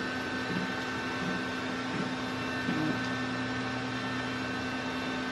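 Desktop PC's cooling fans spinning at a steady whir with a hum just after power-on, the machine running but not posting to a display.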